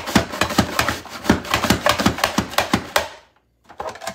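Pampered Chef Rapid-Prep Mandoline chopping apple pieces, clacking rapidly at about four to five clacks a second as the food is pushed through the blades and the handle is worked. The clacking stops about three seconds in, with a couple of last clicks near the end.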